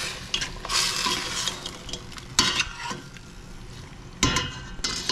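Chicken, tomato and onion sizzling in a stainless steel pot while a steel spoon stirs and scrapes through it, with sharp knocks of the spoon against the pot about two and a half and four seconds in.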